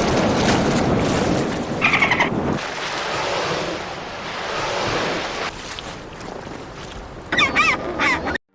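Wind rushing on the microphone, with short bird calls about two seconds in and again near the end.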